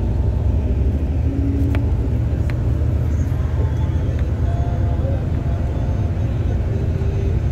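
Steady low rumble of a vehicle's engine and tyres on the road, heard from inside the moving vehicle, with a couple of faint rattles about two seconds in.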